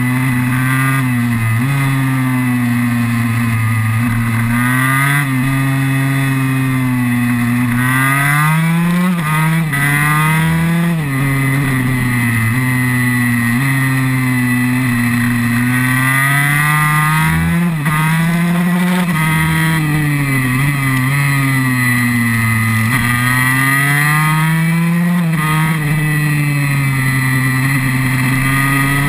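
KTM 144 SX supermoto's 144 cc two-stroke single-cylinder engine, heard from on board while ridden hard around a track. The engine note climbs and falls repeatedly as the bike accelerates, shifts and slows for corners, with quick rising sweeps now and then.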